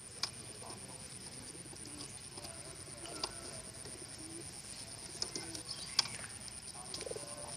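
Pigeons cooing softly, with a few sharp clicks, the loudest about six seconds in.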